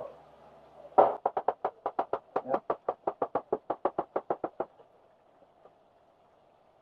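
Kitchen knife slicing bitter gourd (ampalaya) on a plastic cutting board: a quick, even run of chopping knocks, about seven a second, starting about a second in and stopping after some three and a half seconds.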